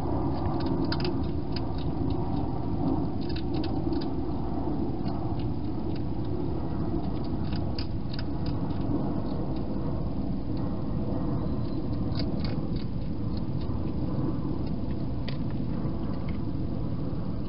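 Wild hedgehog eating from a bowl inside a plastic feeding box: short runs of faint clicks every few seconds. A steady low rumble runs underneath and is louder than the clicks.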